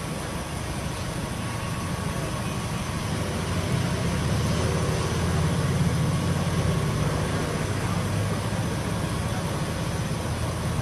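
Steady low engine rumble with a haze of noise over it, swelling through the middle and easing slightly near the end.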